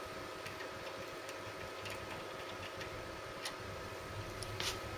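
Faint, scattered small clicks of a screwdriver undoing a screw in a copier's metal frame, a few a little stronger near the end, over a steady faint hum.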